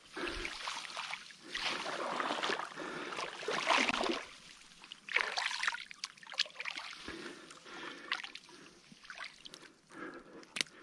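Water sloshing and splashing in irregular surges a second or so long, as a hooked carp is played in the shallows.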